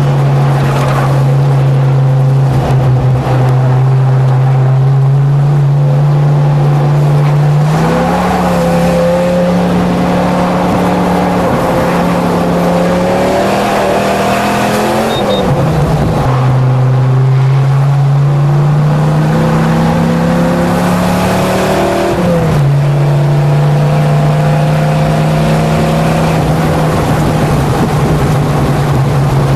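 Race-modified full-size pickup truck's engine running hard around a race track. Its note climbs steadily, jumps up about a quarter of the way in, and drops sharply twice, in the middle and about three-quarters through, before climbing again.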